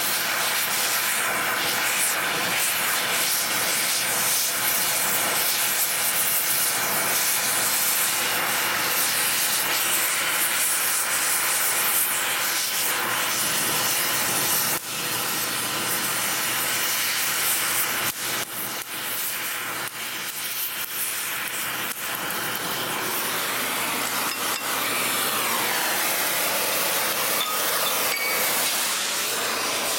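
Oxy-acetylene cutting torch with a cutting tip hissing steadily as it cuts through the race of a seized ball bearing on a steel motor shaft. The hiss dips briefly about halfway through.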